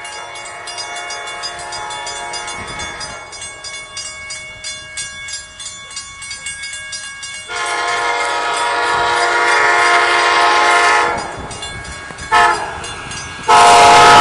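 Railroad grade-crossing bell ringing steadily as a train approaches, then the leading Amtrak cab car's horn sounds a long blast, a short one, and another long, louder blast near the end as it reaches the crossing.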